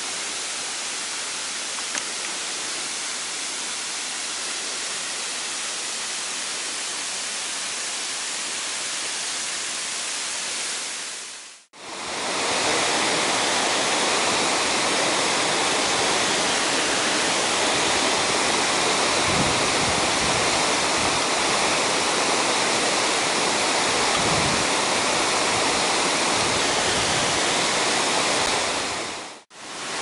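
Waterfall water rushing and splashing, a steady hiss. About twelve seconds in it fades out briefly, and a louder, fuller rush from a taller double waterfall takes over, fading again just before the end.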